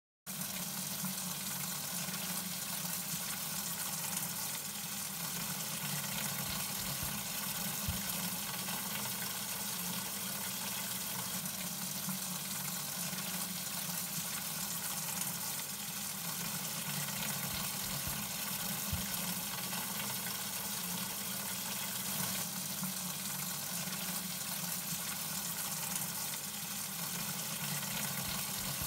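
Water spraying from a hose-end feeder into a plastic watering can, a steady rush of filling that starts abruptly just after the beginning.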